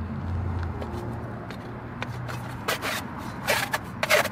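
Thin aluminium stovepipe sections scraping against each other as they are fitted together, a few short scrapes in the second half, over a low steady hum.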